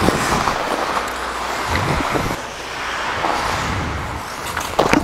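Ice skates gliding and scraping across the rink, heard as a steady hiss with wind rushing over a body-worn camera's microphone; a couple of sharp knocks near the end.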